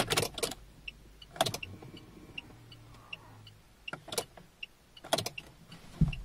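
Clicks and knocks of a car key being handled and turned in the ignition switch of a Mahindra Scorpio, with faint, evenly spaced light ticks and a brief low hum as the ignition comes on. Right at the end a low burst marks the starter beginning to crank the engine.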